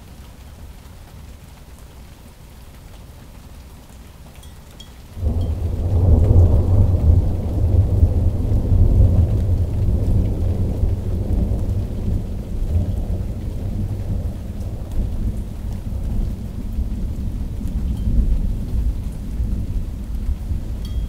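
Thunder: about five seconds in, a sudden crack opens into a long, deep rumble that peaks over the next few seconds and then rolls on, slowly easing off. Rain falls steadily throughout.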